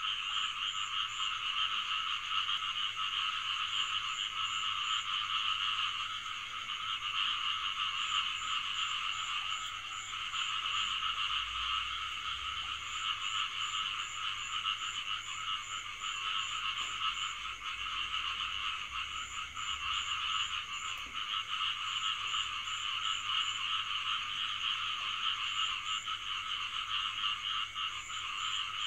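A dense chorus of frogs calling steadily, with short runs of quick, high pulsed calls recurring every few seconds.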